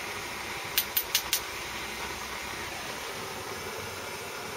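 Steady hiss of a lit gas blowtorch flame, with four quick sharp clicks close together about a second in.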